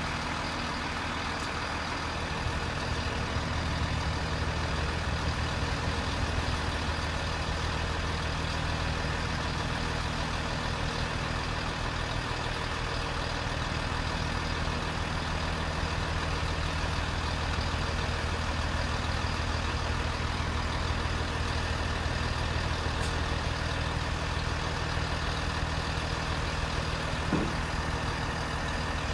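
Class 158 diesel multiple unit idling at a standstill, its underfloor diesel engines running in a steady low drone. A brief rising tone sounds near the end.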